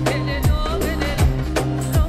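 Background music with a steady kick-drum beat about every three quarters of a second, a bass line and a wavering melody.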